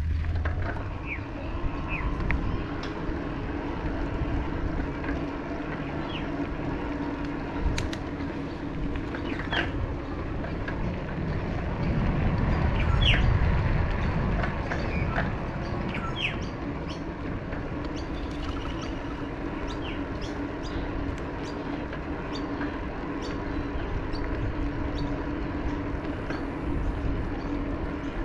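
Birds chirping with many short calls over a steady low hum and rumble, the rumble swelling for a couple of seconds about halfway through.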